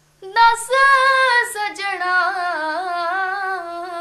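A woman singing a Punjabi song unaccompanied. After a short breath at the start she holds a long, ornamented vowel with vibrato that steps slowly down in pitch.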